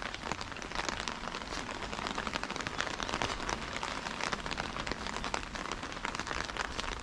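Steady rain: a dense, even patter of drops.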